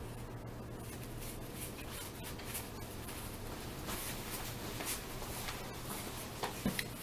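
1983 Topps baseball cards being handled and flipped through: faint paper rustles and small soft ticks over a low steady hum, with a couple of slightly sharper ticks near the end.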